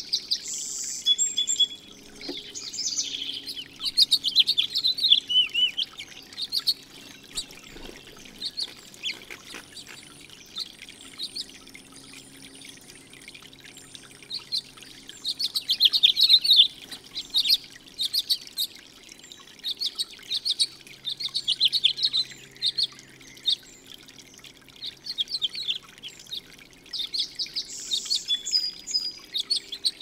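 Small songbirds chirping and singing in quick repeated phrases over the steady trickle and splash of water falling from a tiered fountain.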